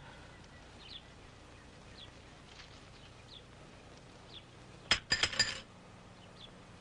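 A small hard object strikes and clinks, one sharp hit followed by a quick rattle of several bright ringing clinks, about five seconds in. Short high chirps recur faintly about once a second throughout.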